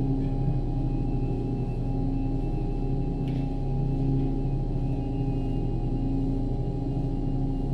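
Ambient drone music: a steady low hum layered with a higher tone that swells and fades about every two seconds.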